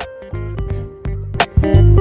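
Background music: a melody of pitched notes over a bass line and a beat, which jumps louder about one and a half seconds in.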